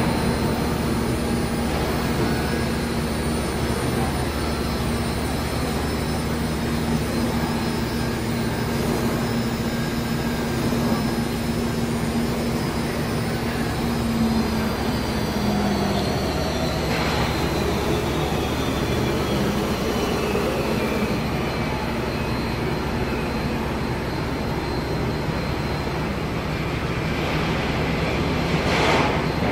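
Machinery running steadily and loudly, with a low hum that drops slightly in pitch about halfway through and a faint high whine that slowly falls after it.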